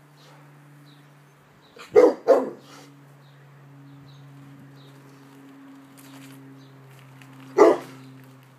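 Rottweiler giving short, loud barks: two in quick succession about two seconds in, then one more near the end. They are alert barks at the sound of a distant ambulance siren. A steady low hum runs underneath.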